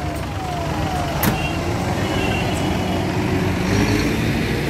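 Heavy fire engine's diesel engine running as the truck drives slowly past, with a few short high beeps in the middle.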